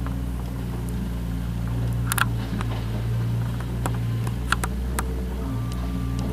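Mustang 2054 skid steer's diesel engine running steadily, with sharp metallic clanks and clicks from the machine about two seconds in and several more between four and five seconds.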